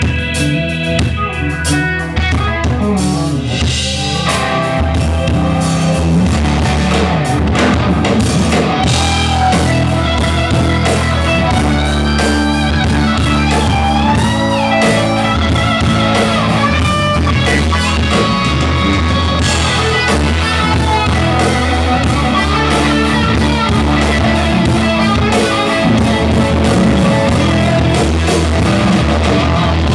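Live rock band playing an instrumental passage: electric guitar lead with bent, wavering notes over bass and a drum kit.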